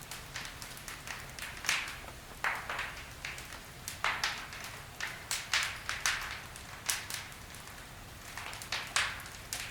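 Wood fire burning in a fireplace: logs crackling with irregular small snaps and pops, a few louder sharp ones among them, over a low steady rumble.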